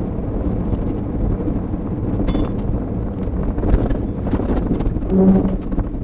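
Steady road and wind noise of a moving car, picked up by its dashboard camera, with a brief louder low hum about five seconds in.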